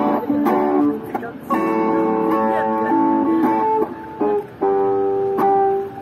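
Guitar music: plucked guitar notes and chords in a changing melody, with short breaks between phrases.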